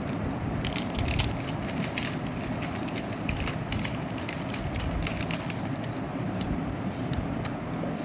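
Irregular clicks and crackles of lipstick tubes and small cardboard lipstick boxes being handled and opened, over a steady low rumble.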